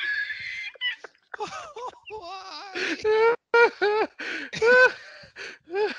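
Men laughing helplessly: high-pitched, wheezing laughs in short rising and falling whoops, with a breathy gasp at the start.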